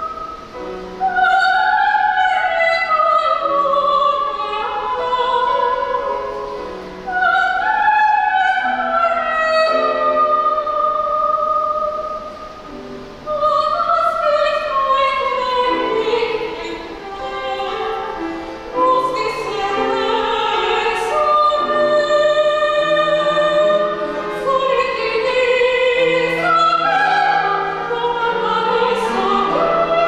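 A soprano sings a zarzuela piece in full operatic voice, high in her range, with flowing runs that fall in pitch, over grand piano accompaniment.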